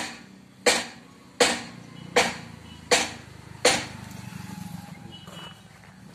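Hammer striking metal in a steady rhythm, about one ringing blow every three-quarters of a second, six blows in all, stopping a little under four seconds in. A steady low hum runs underneath.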